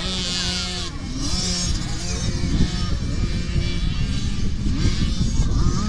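Several motocross bikes racing on a dirt track, their engines revving up and down with overlapping rising and falling pitches.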